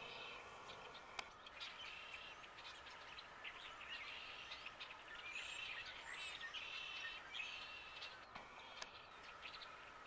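Faint chirping and twittering of small birds: many short, high calls overlapping, busiest in the middle, over a steady hiss. There is a single sharp click about a second in.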